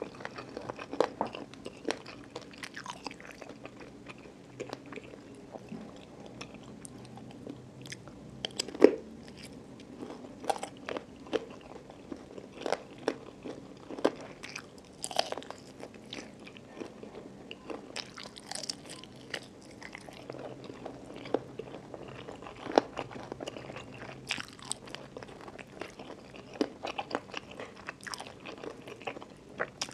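Close-miked eating: a person biting and chewing spicy chicken feet, with irregular crunches at uneven intervals, the loudest about nine seconds in.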